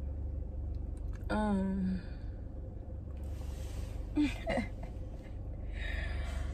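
A short hummed vocal sound about a second in, then breathy sighs and a few small clicks, over a steady low hum.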